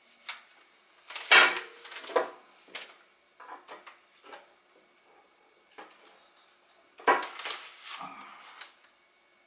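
A steel piston ring being worked onto an aluminum piston by hand: metal clinks and scraping in two bursts, about a second in and again about seven seconds in, with a few light ticks between.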